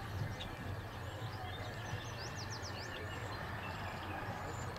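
Steady open-air ambient noise with a low hum underneath. About two seconds in there is a quick run of four or five short, high, falling bird chirps.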